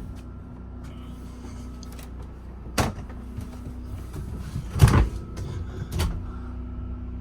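Cabinet and closet doors in a motorhome being opened and shut, giving three sharp knocks, the second the loudest, over a steady low hum.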